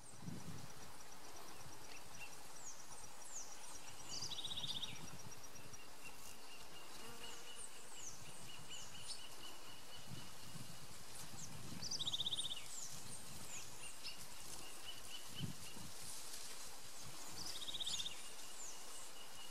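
Forest ambience of birds and insects: many short, high, falling whistled notes, a short buzzy trill repeated about every seven seconds, and a steady high insect whine, with a fast run of high ticks through the first few seconds. Faint low rumbles come and go underneath.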